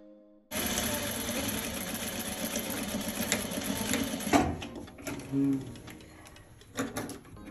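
Industrial single-needle sewing machine running at speed for about four seconds as it stitches a seam around a fabric hat brim, then stopping. A few short knocks follow as the fabric is handled.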